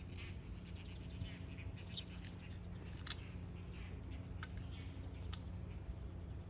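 Birds chirping over a steady low background hum, with a short high note repeating about once a second and a few sharp clicks.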